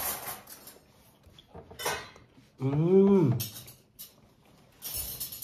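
A few clinks and taps of dishes and cutlery on a table. About halfway through comes a hummed 'mmm' that rises and falls in pitch, from someone tasting food.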